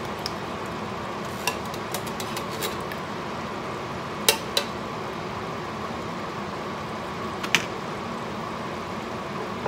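A metal can of tomato sauce knocking and tapping against a stainless steel cooking pot as the sauce is emptied out, about six sharp knocks with the loudest a little before the middle. A steady hum runs underneath.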